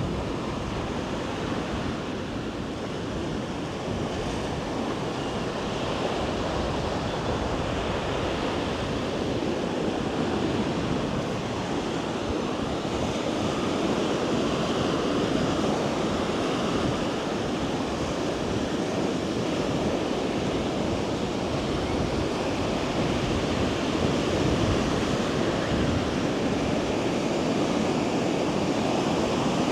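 Ocean surf washing onto a sandy beach, a steady rushing noise that grows slightly louder over the stretch, with wind buffeting the microphone.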